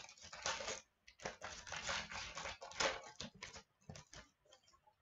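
Hockey card pack being opened and its cards handled: irregular crinkling, rustling and clicking that thins to a few light ticks in the second half.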